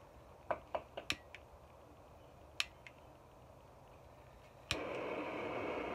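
Brazing torch's electronic igniter clicking several times, then the torch lighting with a sharp click about three-quarters of the way in and burning with a steady gas hiss.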